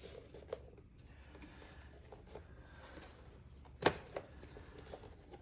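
Faint clicks of small parts being handled, with one sharper plastic-like click about four seconds in.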